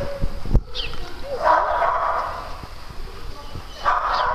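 Dogs at rough-and-tumble play, whining and yipping in two drawn-out stretches, with a sharp knock about half a second in and scattered light thumps.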